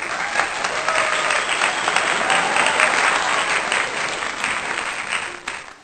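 Crowd applause: dense clapping with faint voices in it. It starts abruptly and cuts off just before the end, the way an applause sound effect laid over the footage does.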